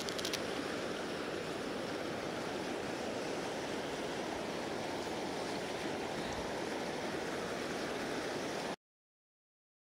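Fast river current rushing steadily past, an even hiss of moving water that cuts off suddenly near the end.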